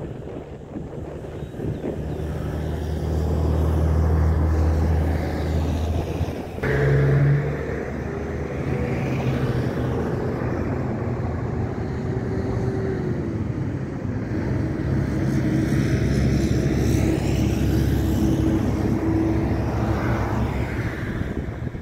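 Steady low engine rumble with a deep hum, swelling a little a few seconds in and changing abruptly about six and a half seconds in.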